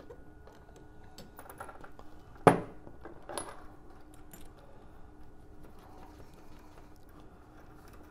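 Metal clicks and clinks of coaxial RF connectors and a through adapter being handled and fitted, with one sharp click about two and a half seconds in and a smaller one about a second later.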